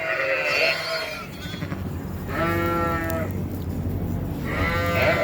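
Sheep bleating: a faint call at the start, a loud quavering bleat about halfway, and another beginning near the end.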